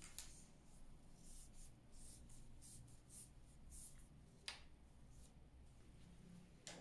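Faint rustling and swishing of a silk bow-tie band being handled and slid across a table, with three light clicks: one just after the start, one about two-thirds in, and one near the end.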